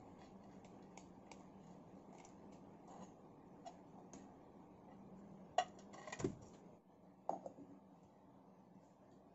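Light ticks and taps of whole dried spices and cashews falling into a steel mixer-grinder jar, then a few sharper clacks about six and seven seconds in as the grinder's plastic lid is handled, over a faint steady hum.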